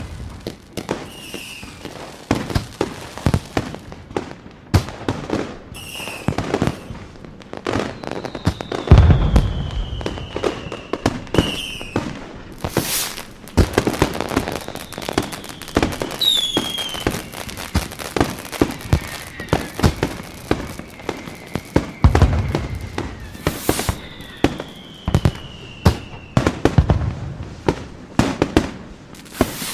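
Fireworks going off: rapid crackling bangs throughout, a few deep booms with the loudest about nine seconds in, and several whistling fireworks whose whistles fall slowly in pitch.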